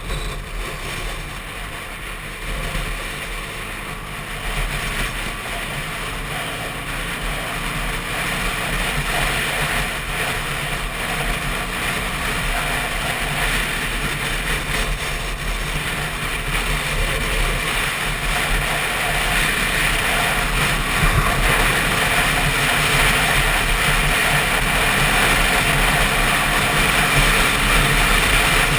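Yamaha WR125's single-cylinder four-stroke engine running at road speed, with wind rushing over the microphone; the sound grows steadily louder across the stretch.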